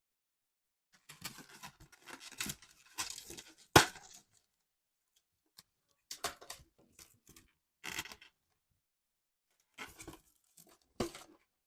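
Latex balloons being handled, stretched and twisted, with short bursts of rubbing, squeaking rubber. There is one sharp crack a little under four seconds in.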